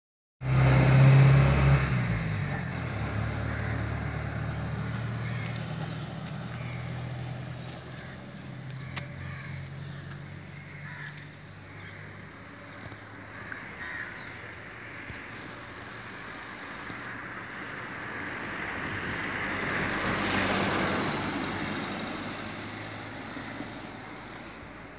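A motor vehicle's engine, loud at first, fading away over about ten seconds. About twenty seconds in, a second vehicle passes with a rush of noise that rises and then falls. Short bird calls sound between the two.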